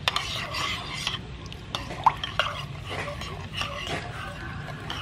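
Metal spoon stirring a watery tamarind sauce in a black ceramic pot: swishing liquid with scattered clicks and scrapes of the spoon against the pot, and one sharper clink about two seconds in.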